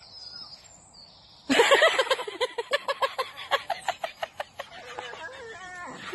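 Chicken clucking: a rapid run of clucks starts abruptly about a second and a half in, then slows and fades. A second run begins near the end.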